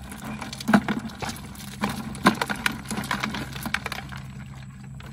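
Woven crab trap rattling and knocking against a plastic bucket as crabs are shaken out into it: an irregular clatter of clicks, with two louder knocks about a second in and just past two seconds.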